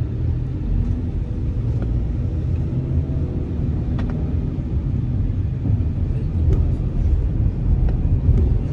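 Steady low rumble of a vehicle driving on the road, heard from inside the cabin, with a sharp click about four seconds in.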